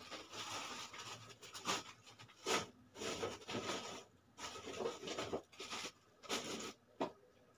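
Irregular rustling and scraping of things being handled close to the microphone, in uneven bursts with short pauses between them.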